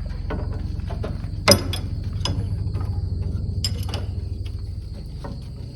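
Scattered metallic clicks and knocks of hand tools working the chain tensioner on a combine's chopper drive, one sharp knock about a second and a half in, over a steady low hum that fades slightly near the end. A thin steady high insect tone, like a cricket, runs underneath.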